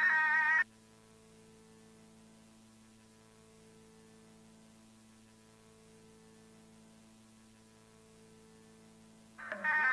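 Low, steady electrical hum made of several evenly spaced tones, like mains hum on an analog soundtrack. A loud high-pitched tone cuts off abruptly under a second in, and another loud pitched sound comes in just before the end.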